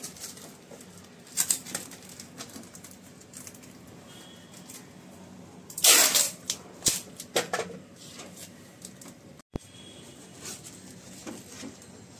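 Insulation tape being wrapped by hand around a brazed refrigerant pipe joint at a split air-conditioner indoor unit: scattered crackles and rustles, with a louder burst of rustling about six seconds in and a few smaller ones soon after.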